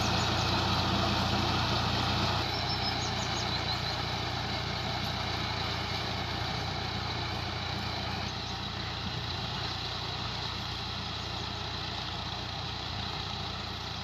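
Ghazi 480 tractor's diesel engine running steadily under load as it drives a heavy rotavator through the soil, slowly fading as the tractor moves away.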